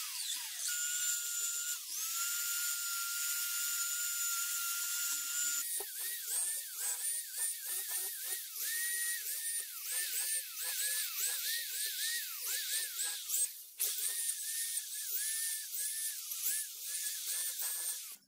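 High-speed electric rotary tool whining at a steady pitch for a few seconds. It then sags in pitch over and over, about twice a second, as it is repeatedly pressed against the work. It cuts out briefly once and stops at the end.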